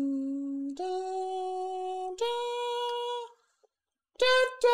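A voice sings long held notes, three of them stepping upward in pitch. After about a second's pause, a louder, higher note is held.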